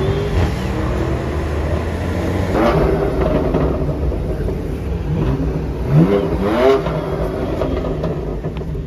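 A car's engine accelerating hard, its pitch climbing in several rising pulls, the loudest about six to seven seconds in, over a steady rumble of other traffic.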